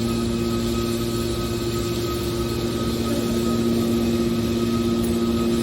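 Hydraulic scrap aluminum baler running, its motor and pump giving a steady hum with a constant level.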